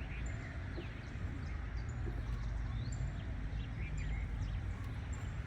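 Birds chirping outdoors: short high chirps, with one thin high note repeating about once a second, over a steady low hum.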